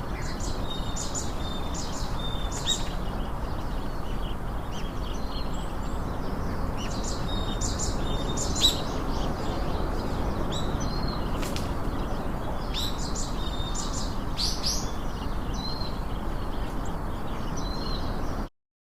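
Small birds chirping, with many short, high chirps and calls scattered through, over a steady low background rumble. The sound cuts off suddenly near the end.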